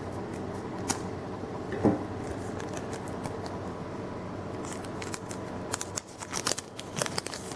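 Foil trading-card booster pack being cut open and handled: a few sparse crinkles and clicks, then a quick run of snips and crinkles in the last couple of seconds.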